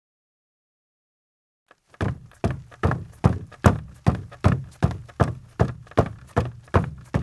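Footsteps of a man in sneakers on a deck: after a silence, quick, even steps start about two seconds in, roughly two and a half a second, each a sharp knock with a low thud.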